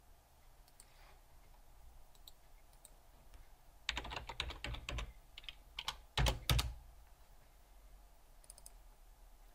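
Typing on a computer keyboard: a quick run of keystrokes about four seconds in, then two louder key presses a couple of seconds later.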